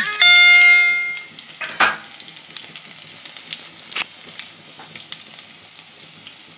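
Tadka of garlic, chopped green chillies and cumin seeds sizzling and crackling in hot ghee in a pan, with scattered sharp pops. At the very start a loud pitched tone rings for about a second and fades.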